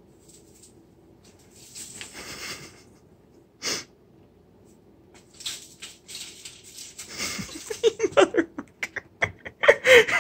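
Artificial Christmas tree branches rustling as a cat climbs through them and clambers out, followed by a person's rapid, breathy laughter near the end.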